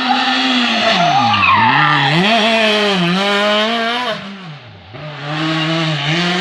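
Rally car engine revving hard. The pitch falls as the driver lifts, climbs again through gear changes, dips briefly near the end of the run and then picks back up, with tyre squeal as the car drifts through the corner.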